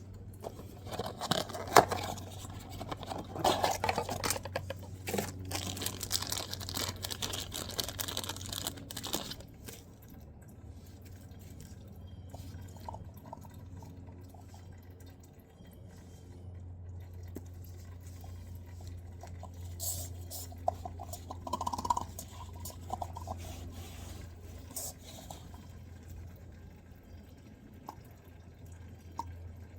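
Motor oil dripping and running into a drain pan, with a steady low hum underneath. The sound is busier, with sharp knocks, early on and again about two-thirds of the way through.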